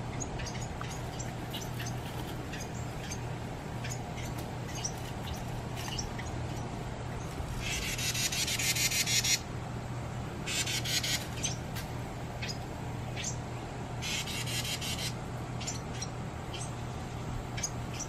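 Carolina wren calls: scattered short high chips, and three harsh, rapid chattering rattles about a second long each. The first and longest rattle, about eight seconds in, grows louder as it goes.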